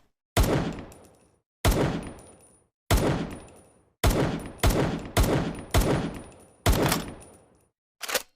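Makeshift sound effect imitating M1911 pistol shots: eight sharp bangs, each with a short fading tail. The first three come about a second and a quarter apart, the next five faster, then two short clicks near the end.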